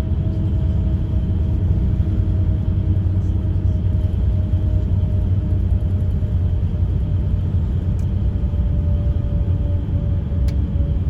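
Bus engine and road noise heard from inside the passenger cabin: a steady low rumble with an engine drone that sinks slightly in pitch, and a couple of faint clicks.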